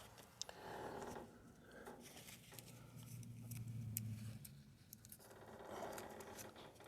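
Faint rustling and scratching of Velcro ties being handled and wrapped around hydraulic hoses, in three soft spells with a few light clicks.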